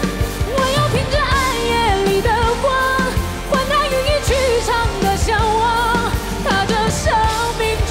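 A woman singing a Mandarin pop song live, with full band accompaniment and a steady drum beat.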